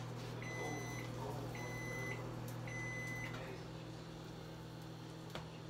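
Kitchen appliance beeper sounding three long, even electronic beeps about a second apart, the pattern of a microwave's or stove timer's done signal, over a steady low hum.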